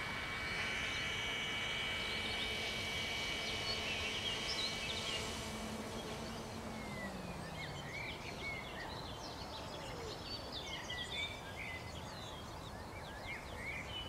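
Compass Chronos 700 electric RC helicopter's motor and rotor whining steadily, then spooling down and stopping about halfway through as it sits landed. Birds chirp for the rest.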